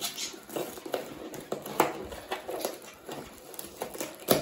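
Taped cardboard box being torn open by hand: tape and cardboard flaps ripping and rustling in irregular bursts, with sharper rips a little under two seconds in and near the end.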